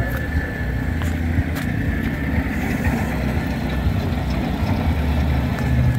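An engine idling steadily, a continuous low rumble.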